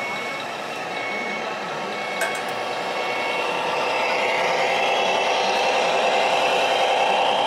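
Reversing beeps from a radio-controlled construction model's sound module, short beeps on one high tone about once a second, stopping about halfway through. After that a machine running sound grows louder, and a single click sounds about two seconds in.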